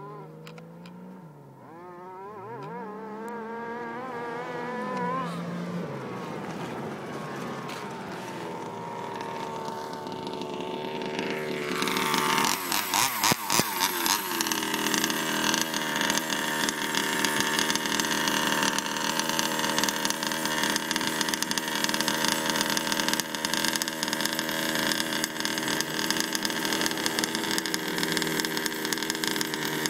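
An engine revving in the distance, its pitch rising and falling. About twelve seconds in, after a few sharp crackles, a louder engine close by runs at a steady pitch with a steady hiss over it.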